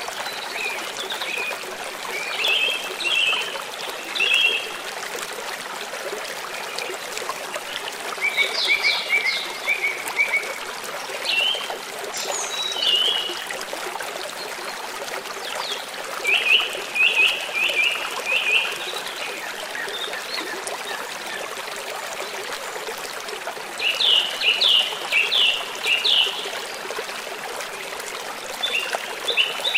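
A stream running steadily, with birds singing short phrases of quick, repeated high notes every few seconds over it.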